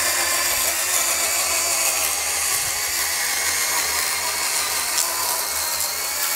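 Bosch EasyCut 12 Nanoblade saw, a 12 V cordless saw with a small chain blade, running steadily as it rips lengthwise through 18 mm OSB board. The motor is under some feed pressure, which can be heard in it, but it is not straining.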